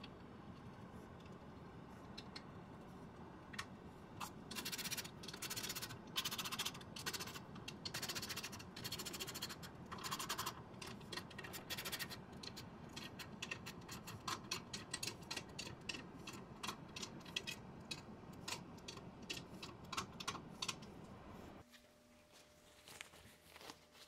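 Irregular metallic scraping and clicking as a pipe fitting is worked by hand on the steel lid of a band saw's hydraulic tank, over a steady low hum. The hum drops away about three seconds before the end.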